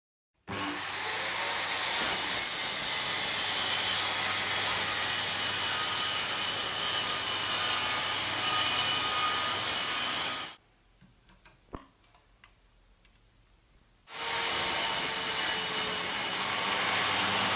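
Bosch GKS 66 X 6-inch circular saw running and cutting wood. It cuts off abruptly about ten seconds in, leaving a few seconds of near silence with one faint click, then starts cutting again abruptly.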